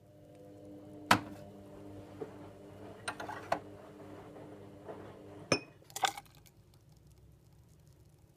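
Glassware clinking and knocking on a countertop while coffee is being made: a few sharp clinks, the loudest about a second in and again around five and a half and six seconds in. A steady low hum runs underneath and stops about five and a half seconds in.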